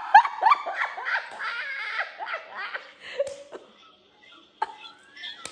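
A woman laughing hard in quick repeated bursts, dying away about three seconds in.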